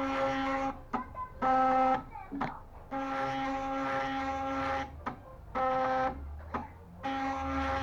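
Stepper motors of a small homemade CNC machine whining at one steady pitch, moving in starts and stops: long runs alternate with short ones, with brief pauses and small clicks between.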